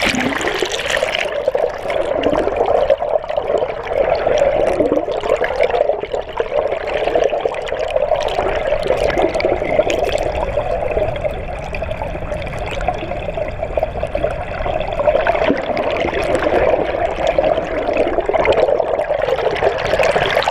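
Water rushing and bubbling around a camera held underwater beside a boat hull: a dull, steady, turbulent rush heard from under the surface. It starts abruptly as the camera goes under and stops abruptly as it comes out.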